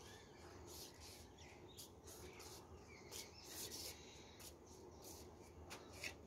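Near silence, with a few faint bird chirps and soft scattered ticks and rustles.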